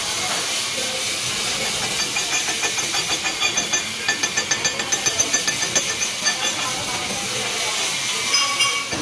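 Electric arc welding: the arc gives a steady crackling hiss. A run of quick, regular pulses comes through in the middle for a couple of seconds.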